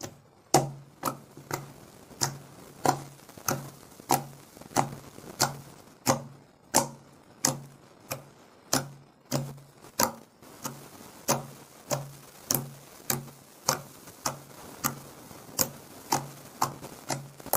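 Fingertips poking into a sheet of glue-and-toothpaste slime, each poke a sharp sticky pop with a small thud from the table. The pokes come in a steady rhythm of just under two a second.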